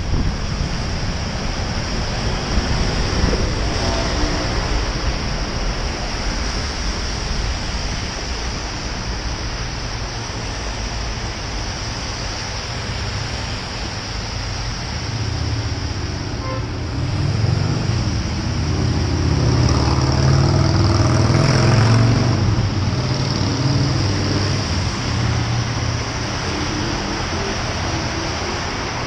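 Road traffic on a wet road, heard from a moving bicycle: a steady hiss of tyres on the wet surface. A motor vehicle's engine swells louder and fades again about two-thirds of the way through.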